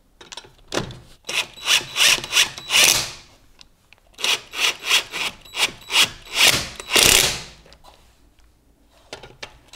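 Cordless Parkside impact wrench spinning a car's wheel bolts into the hub in a string of short trigger bursts, each spinning up and winding down. The bursts come in two runs and stop a couple of seconds before the end.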